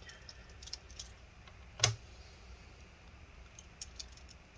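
Small metallic clicks and ticks of a small screwdriver and screws being handled on an opened MacBook Air's aluminium case while the trackpad screws are refitted, with one sharper, louder click a little under two seconds in.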